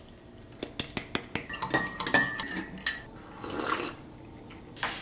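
Metal spoon stirring coffee in a ceramic mug: a quick run of light clinks with a brief ring, followed by a soft sip from the mug and a short burst of noise near the end.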